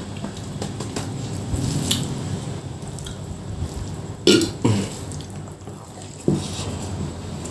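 Close-miked eating sounds of someone eating nasi padang: chewing and mouth noises, with two loud short mouth sounds in quick succession a little past the middle and another near the end.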